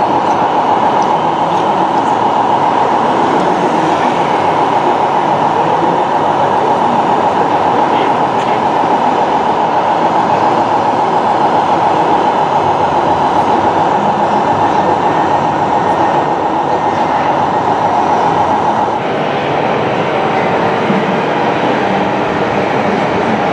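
Radio-controlled model trucks running, a steady mechanical whine from their electric drive motors and gearboxes over a rough rattling noise, shifting in pitch and dropping a little in level about three quarters of the way through.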